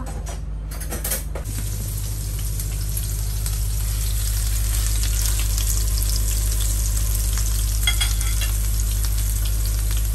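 Food sizzling and frying in a hot pan, the sizzle swelling over the first few seconds and then holding steady, with a single sharp utensil tap near the end, over a steady low hum.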